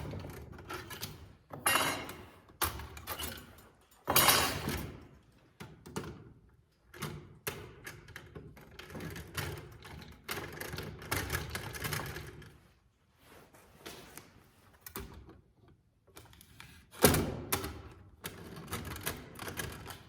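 Irregular handling noise: clicks, clatter and several louder knocks and thunks as light fixtures are prepped for installation.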